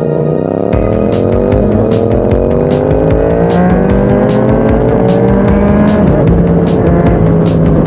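Yamaha MT-09's 847 cc crossplane three-cylinder engine through an Akrapovic shorty exhaust, accelerating hard through the gears. The pitch climbs steadily and dips briefly at each of four upshifts.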